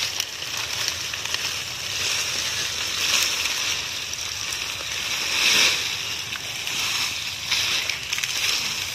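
Dry coconut palm fronds rustling and scraping as a bundle of them is carried and dragged over grass, in several louder swells.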